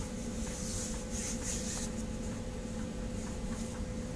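A steady low electrical hum from room equipment, with a faint high hiss and soft irregular rubbing sounds.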